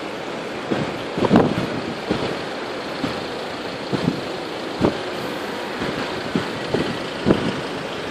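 Car engines running in slow traffic on a flooded road, over a steady rush of noise with irregular short gusts of wind buffeting the microphone.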